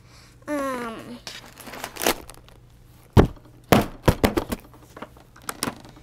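Crinkling of plastic-packed craft supplies and a series of knocks and thunks as a craft-kit box is packed up and its lid shut, the loudest a deep thunk about three seconds in.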